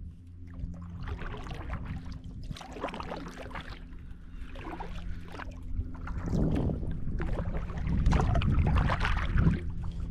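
Kayak paddle strokes swishing and splashing in the water, one stroke every second or two and louder in the second half, over a steady low hum.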